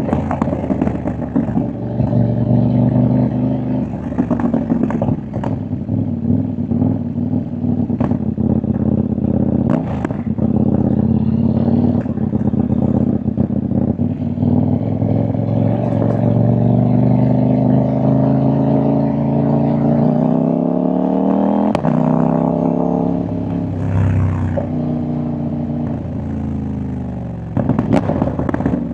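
CFMOTO 800NK's 799 cc parallel-twin engine and exhaust under way, its pitch rising and falling with the throttle and one long climb before a drop about three-quarters through. Sharp pops and crackles from the exhaust come again and again throughout.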